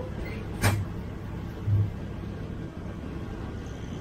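Passenger train running along the track, a steady rumble heard from on board, with two heavy thumps about a second apart, the first a sharp knock.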